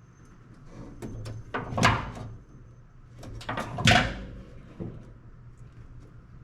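Parts and tools being handled during wiring work: a few light clicks, then two louder knocks about two seconds apart.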